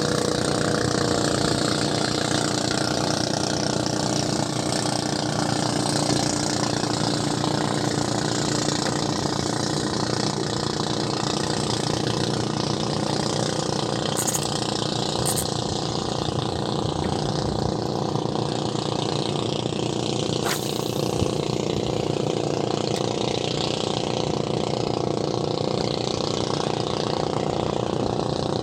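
Small boat's outboard motor running steadily, a constant engine drone, with a few brief clicks about halfway through.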